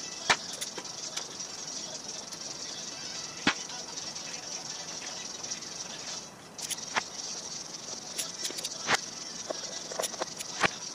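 Hand tools working on a Ford flathead V8's connecting rods: about five sharp knocks from a mallet tapping the rod caps, spread through, with lighter metallic clinks of a wrench in between, over a steady high hiss.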